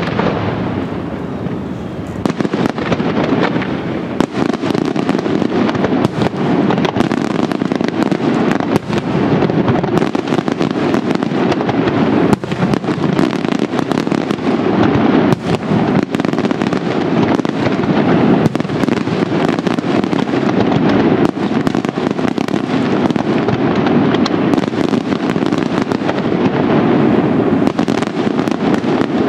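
Fireworks display at full intensity: a dense, unbroken barrage of aerial shells bursting and crackling, many sharp bangs a second overlapping into one continuous din.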